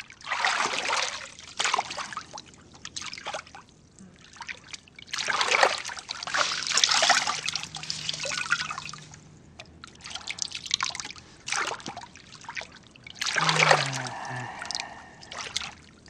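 Bath water in a wooden tub trickling and splashing as a bather washes, pouring it over himself from a wrung cloth. It comes in several spells a few seconds apart.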